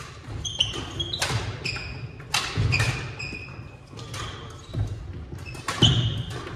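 Badminton rally: sharp racket hits on the shuttlecock, several over a few seconds, with short high squeaks of court shoes on the hardwood floor.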